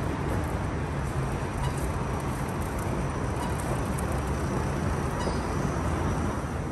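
Steady low rumble and hiss of an underground train station's background noise, heard while riding down an escalator.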